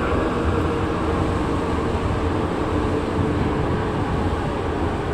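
A Santiago Metro NS-2004 rubber-tyred metro train running at speed, heard from inside the driver's cab: a steady rolling and traction noise with a low hum.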